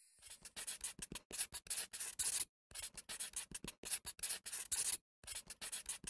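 Pen-on-paper scribbling sound effect: a rapid run of short scratchy strokes, broken twice by a brief silence, about two and a half and five seconds in.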